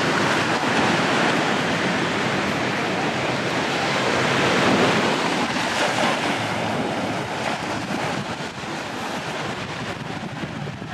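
Sea waves breaking and washing up on the beach: a rushing surf that swells about halfway through and then eases off.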